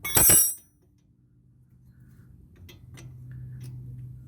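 A steel wrench clinks sharply against metal once, ringing briefly with high tones, followed by a couple of faint light taps.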